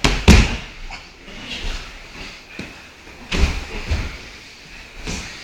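Bodies thudding and shifting on foam grappling mats during a roll, with a heavy thump just after the start and more thumps about three and a half and four seconds in.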